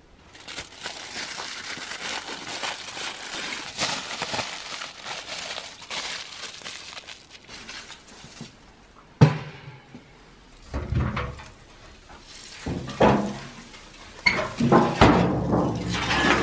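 Dry leafy branches rustling and crackling, then a run of loud knocks and clanks as a corrugated metal sheet is moved on the clay rim of a tandir oven.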